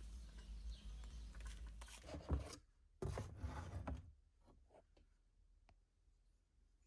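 Faint handling noises: a low rumble, then a sharp knock a little over two seconds in, a second of rubbing or scraping, and a few light clicks.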